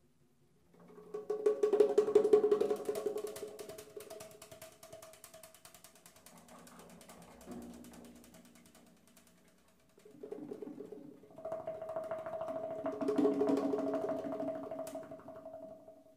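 Small rope-laced, hide-headed hand drums played with the fingers in fast, dense rolls. There are two swells that build and fade, the first starting about a second in and the second from about ten seconds, with sustained ringing tones beneath.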